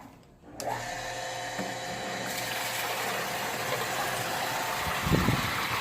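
Swimming pool waterfall switched on about half a second in: a steady pump motor hum over a continuous rush of falling water. A brief low thump comes near the end.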